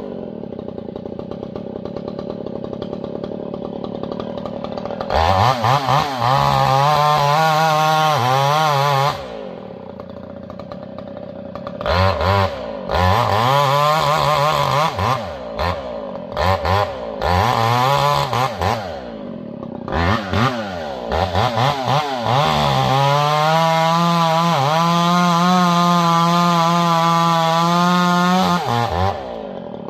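Two-stroke chainsaw cutting into the trunk of a standing tree. It idles, then runs at full throttle in bursts, dropping back to idle between them, with short blips in the middle and a long steady cut near the end before it settles back to idle.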